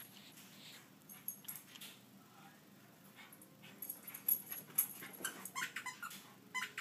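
Faint sounds of a Shih Tzu: quick clicks that grow busier in the second half, with a few short whimpers near the end.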